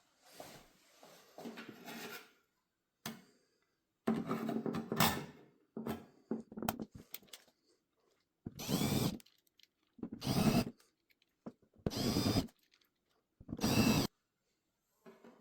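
A small electric screwdriver running in four short bursts, about a second and a half apart, after some clattering handling noises.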